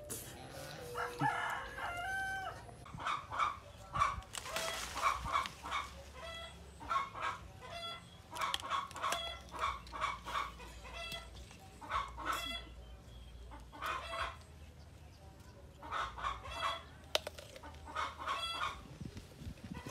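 Chickens clucking in short calls repeated about once or twice a second.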